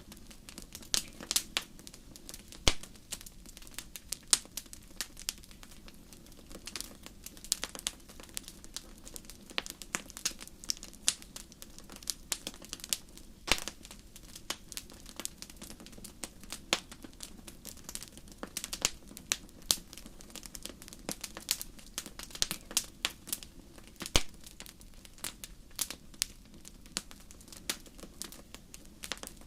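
Wood fire crackling in a fireplace: irregular sharp pops and snaps, a few much louder than the rest, over a steady low hum.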